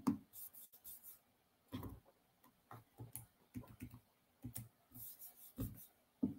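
Faint, irregular clicking and tapping on a computer keyboard, a few keystrokes at a time.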